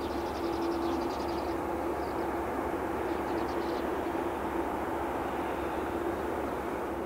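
Boeing 747-8F freighter's GEnx turbofan engines running at low power as it taxis: a steady rumble with a constant hum.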